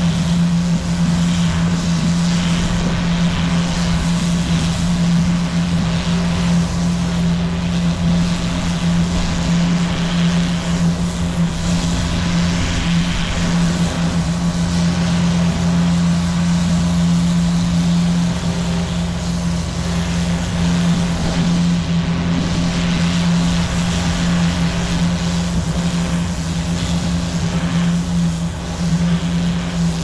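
Pressure washer running steadily: a constant machine hum under the hiss of the water jet blasting moss off concrete roof tiles.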